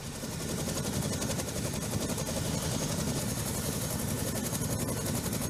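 CH-47 Chinook's tandem rotors running on the ground, a rapid even chopping of the blades over the rumble of its twin T55 turboshaft engines, with a faint high turbine whine.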